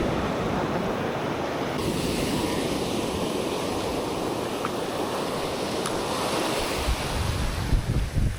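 Ocean surf washing steadily on the beach, with wind buffeting the microphone in low rumbles near the end.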